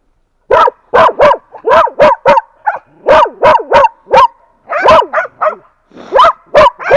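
Hunting laika barking close by in a rapid run of loud, short barks, about two to three a second, starting about half a second in.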